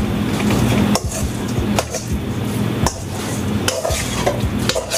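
A spoon stirring seasoned cubed venison in a stainless steel mixing bowl: wet scraping with irregular clinks of the spoon against the metal bowl.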